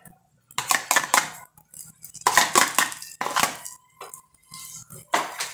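A metal kitchen utensil clinking and scraping against cookware in several short clusters of clatter, with a brief faint ring after one of them.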